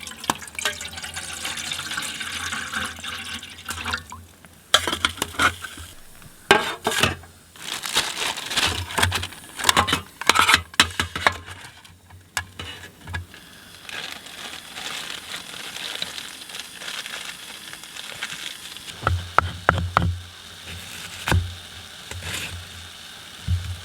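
Water being poured into a cooking pot for a few seconds, followed by a run of knocks and clinks of cookware and utensils.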